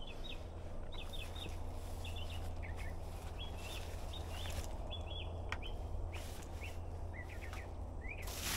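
Small birds chirping in short, quick repeated calls over a low steady hum, with a brief rush of noise near the end.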